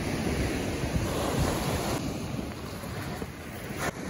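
Ocean surf breaking and washing on the beach, with wind buffeting the microphone; a short sharp click about four seconds in.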